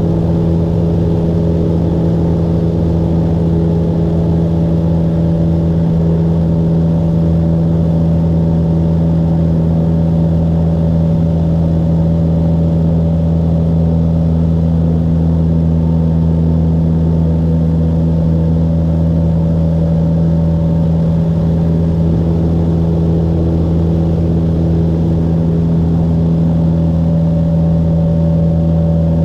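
Cessna 172's piston engine and propeller droning steadily in flight, heard from inside the cockpit.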